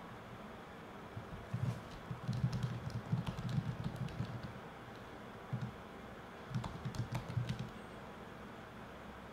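Typing on a computer keyboard: a quick run of keystrokes, a pause with a single tap, then a second short run.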